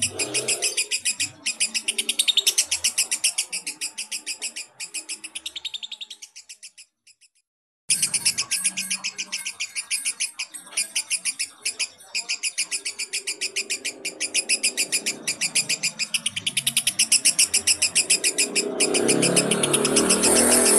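Lovebird singing its long 'ngekek' chatter: a rapid run of high, sharp repeated notes. The trill fades out about six seconds in, stops for about a second, then starts again and runs on.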